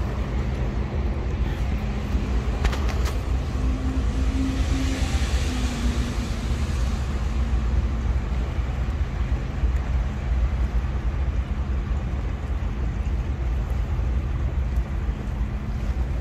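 Steady low engine drone of motor traffic on the waterfront, with a steady hum, and a swell of hiss about four to seven seconds in.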